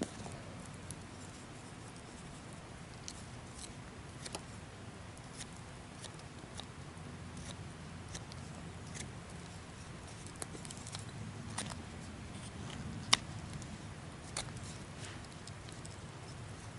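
Swiss Army knife blade whittling a thin wooden stick: scattered faint scrapes and ticks of wood being shaved, with one sharper click about 13 seconds in.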